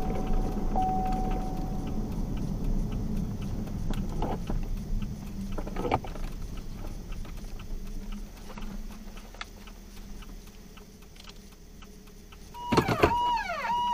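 Fire apparatus on an emergency run: a steady siren tone cuts off about two seconds in, leaving the truck's low engine and road rumble, which gradually fades. Near the end there is a loud knock, then the siren comes back on, sweeping up and down over a steady tone.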